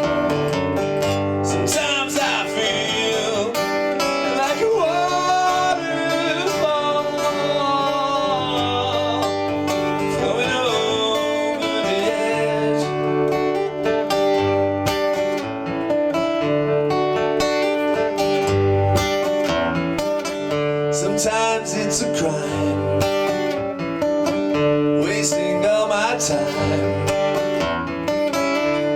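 Music: a song backed by acoustic guitar and bass, with a melody line over it that bends in pitch, most clearly in the first twelve seconds or so.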